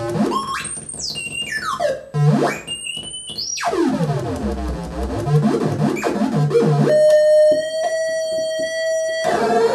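Hand-built circuit-bent noise machine putting out electronic tones: two fast upward swoops in the first few seconds, then a tangle of falling and wavering pitches, then a steady held tone from about seven seconds in that cuts off just before the end.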